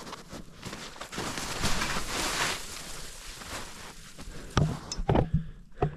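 Footsteps crunching in old, icy snow, a steady rustling crunch that swells about two seconds in, followed by several sharp thuds near the end.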